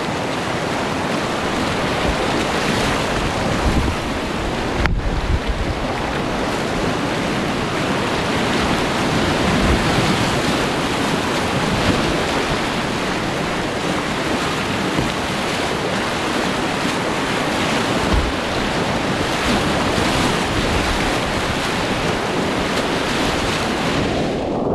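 Loud, steady roar of whitewater rushing through a steep boulder rapid, close to the microphone. Just before the end the sound turns duller as the high end drops away.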